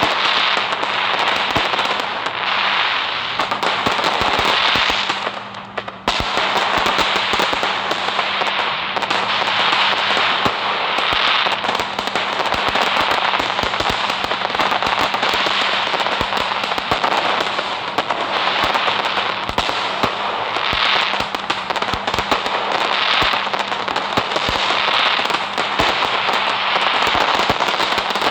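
Fireworks crackling densely, a continuous stream of rapid small pops and crackles. The crackle fades briefly about five seconds in, then starts again abruptly.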